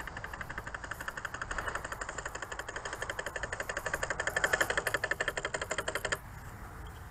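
Pulse-proportional rudder actuator of a single-channel radio-control model plane clicking rapidly and evenly, the rudder wagging in step with the radio pulses. It cuts off abruptly about six seconds in.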